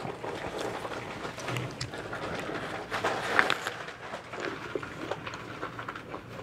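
A person biting into and chewing a crisp apple close to the microphone: small wet crunches and clicks, louder around three seconds in.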